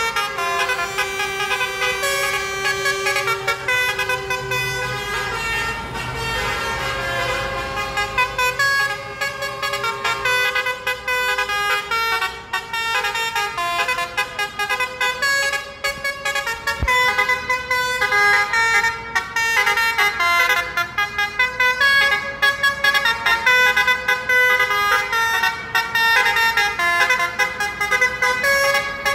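Many vehicle horns from a blockade of tractors and trucks honking in protest, in short overlapping toots at several different pitches that keep up without a break.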